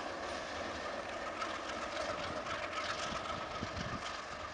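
Diesel locomotive engine running steadily as the locomotive pulls away, its drone slowly fading toward the end.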